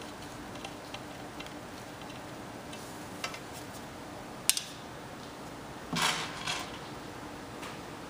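Metal hanging-file bar rails and fittings being handled: light metallic clicks, a sharp click about four and a half seconds in, and a short metallic clatter about six seconds in.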